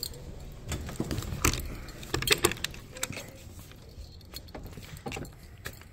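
Screen door being opened and swinging, rattling: a run of clicks, rattles and knocks, the loudest a few sharp knocks about two seconds in.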